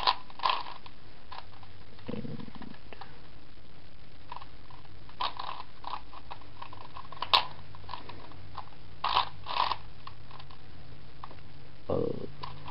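Plastic layers of a 4x4 Rubik's Cube being turned by hand, clicking in scattered short runs of a few turns with pauses between.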